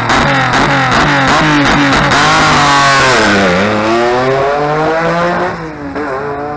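Historic rally car's engine revving hard, with a series of sharp cracks in the first two seconds. The engine note falls to a low point about three and a half seconds in, then climbs steadily as the car accelerates, easing off near the end.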